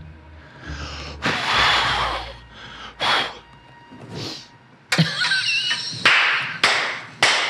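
A man's breathy puffs and gasps, several in a row, the first a long hiss about a second in. A sharp click comes about five seconds in, followed by louder, sharper bursts with squeaky edges.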